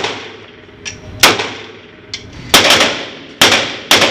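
A string of single gunshots fired one at a time: about five loud shots, each with a short echoing tail, plus a couple of fainter shots in between.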